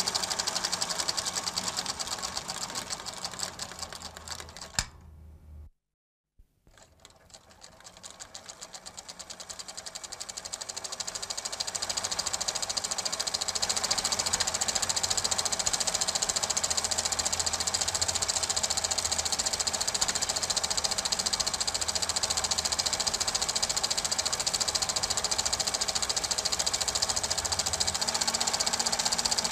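Super 8 film projector running: a fast, steady mechanical clatter of the claw and shutter. It fades down over the first few seconds and stops for about a second, then fades back up and runs evenly.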